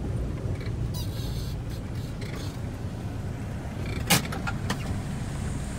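Car cabin noise while driving: a steady low engine and road rumble, with a sharp knock about four seconds in.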